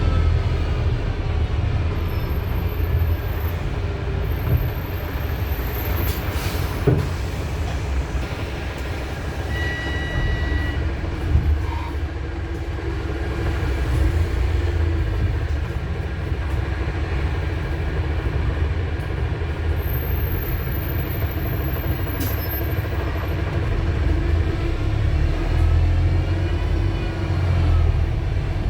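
Wright StreetDeck double-decker bus with a Mercedes-Benz OM934 diesel engine, heard from inside while driving: a steady drivetrain rumble with whining tones that rise and fall as it pulls away and slows. A short beep sounds about ten seconds in, and there are a couple of sharp knocks.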